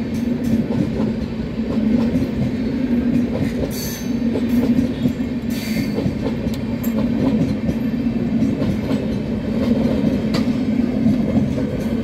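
Red express-train passenger coaches rolling past at speed: a steady rumble of wheels on rail with repeated clatter over rail joints, and brief wheel squeals about four and five and a half seconds in.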